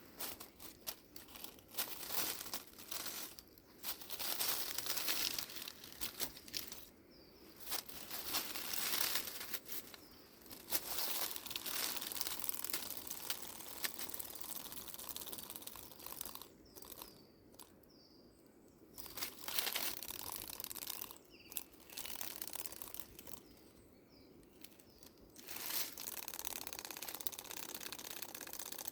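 Dry leaf litter rustling and crunching in irregular stretches that start and stop, with a few faint bird chirps in the quieter gaps.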